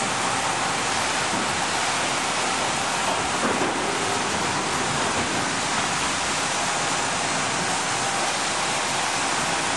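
Steady din of sawmill log handling machinery: chain conveyors and a log deck running, an even rushing noise without distinct knocks.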